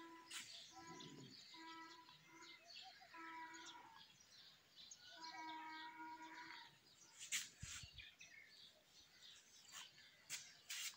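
Faint animal calls: a series of short, steady-pitched notes of varying length, repeated over the first six seconds or so. In the second half come a few scattered sharp clicks or knocks.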